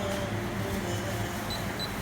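Steady low hum with two short, high electronic beeps near the end.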